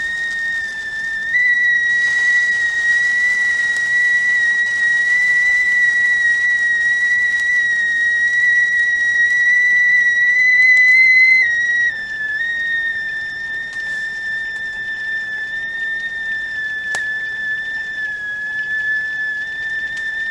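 Stovetop tea kettle whistling at the boil: one sustained high, steady tone. Its pitch steps up slightly just over a second in, then a little past halfway it drops slightly in pitch and gets a little quieter.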